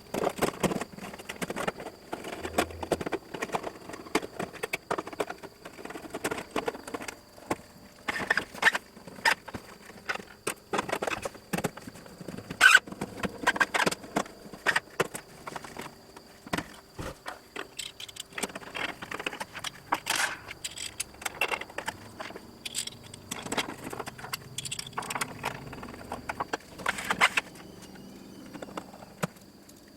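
Irregular clicks, clinks and light rattles of small metal parts and tools being handled, over a faint steady high-pitched tone.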